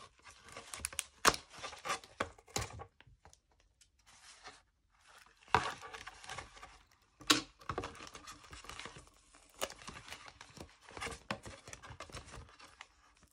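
Paper and plastic wrapping rustling and crinkling as hands unwrap and handle printed photos, with a few sharp clicks and taps, the loudest about a second in and about seven seconds in. It goes quiet for a second or so near the middle.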